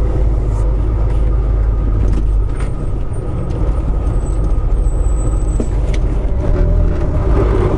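Semi-truck's diesel engine and road noise heard from inside the cab as the truck rolls slowly, a steady low rumble, with a faint high whistle briefly in the middle.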